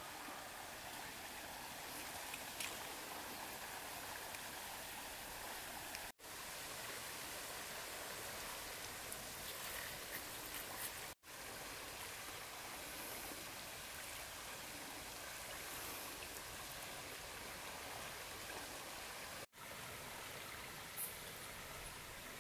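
Steady rush of flowing river water, cutting out for an instant three times, with a few faint light ticks.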